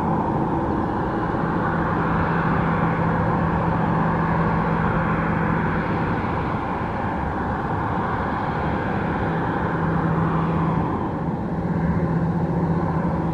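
Boeing 737-800 jet engines (CFM56-7) running steadily at low power, as when the airliner idles or taxis. There is a steady rushing noise with a low hum that fades out about midway and returns a few seconds later.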